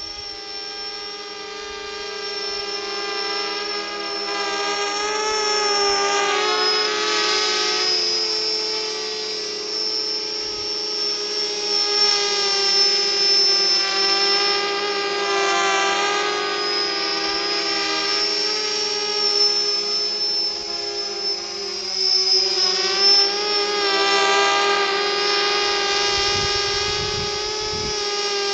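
Small quadcopter's four brushless motors (Sunnysky 2212 1400kv) spinning cut-down 5x4.5 propellers in flight: a buzzing whine whose pitch rises and falls again and again with the throttle. It grows louder over the first few seconds as the craft comes closer.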